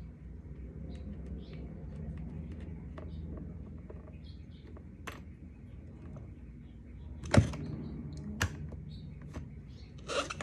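Small clicks and scrapes of a metal skate tool working the axle nut of a roller skate and handling the wheel, with one sharp knock about seven seconds in and a few more clatters near the end.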